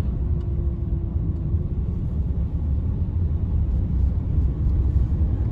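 Steady low rumble of engine and road noise inside a moving car's cabin, with a faint steady hum briefly near the start.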